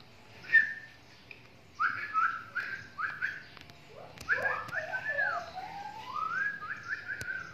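Clear whistled notes: a sharp one about half a second in, then from about two seconds on short runs of notes that step and glide up and down in pitch.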